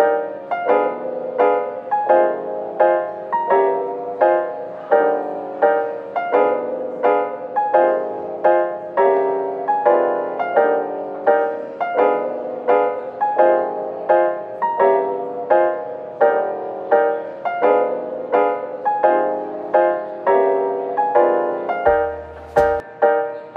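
Background music: a light piano tune with evenly paced notes, about two a second.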